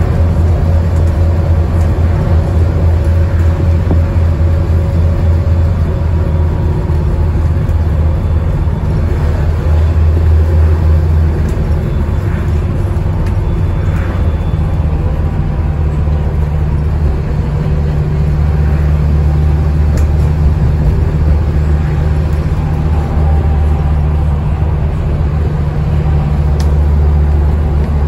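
Scania N230UD Enviro 400 double-decker bus on the move, heard inside on the upper deck: a loud, steady low drone from its five-cylinder Scania DC9 diesel mixed with road noise, the engine note shifting a little about halfway through.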